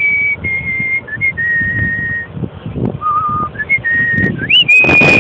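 A person whistling a tune: a run of held notes stepping down and then back up, with a quick upward swoop near the end. A burst of noise comes in under the last note.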